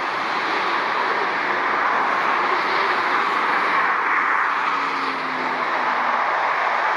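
Steady rushing noise of motorway traffic and jet aircraft at an airport, with no single event standing out.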